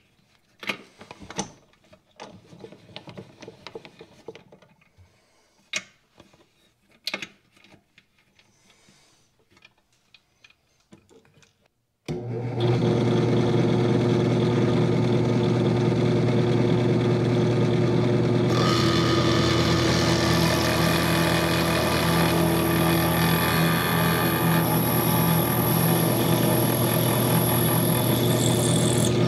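Scattered light clicks and knocks as the toy cap gun frame is handled on the drill press table. About twelve seconds in, a benchtop drill press starts with a steady hum. A few seconds later a higher hiss joins it as the bit cuts into the frame of a 1936 Kilgore cap gun.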